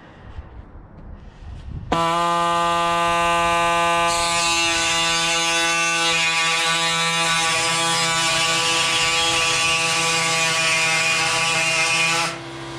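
Pneumatic air saw with a hacksaw blade cutting along the edge of a metal roofing panel: a really noisy, steady buzz that starts about two seconds in. Near the end the buzz drops to a quieter hum.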